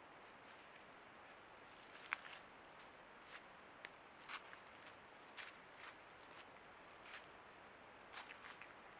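Faint, steady high-pitched insect trilling, with scattered soft clicks and rustles from white-tailed deer stepping and browsing in the leaf litter; the sharpest click comes about two seconds in.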